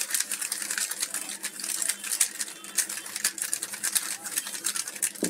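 A plastic 3x3 speed cube being turned fast and over and over in the hands: a rapid, unbroken stream of clicks as its layers snap round.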